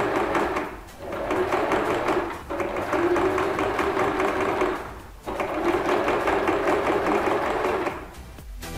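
Singer electric sewing machine stitching bias tape onto a canvas edge with a bias-tape foot. It runs in three spells, stopping briefly about a second in and again about five seconds in, and falls quiet near the end.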